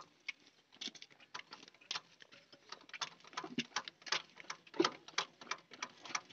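Birds chirping in a rapid, irregular series of short calls.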